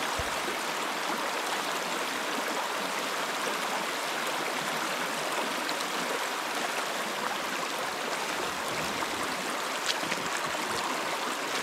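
A small stream running: a steady rush of water.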